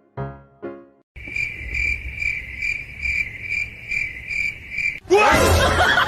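A few piano notes fade out, then a cricket chirps steadily in high pulses about twice a second. Near the end a sudden loud, harsh burst with wavering pitch cuts in over it.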